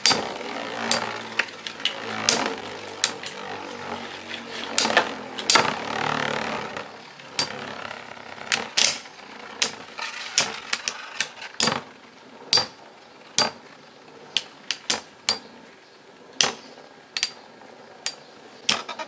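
Two Beyblade Shogun Steel tops, Samurai Ifrit and Ninja Salamander, spinning in a plastic stadium and clashing again and again with sharp clicks and knocks. Under the clicks a low whir of the spinning tops fades away about seven seconds in.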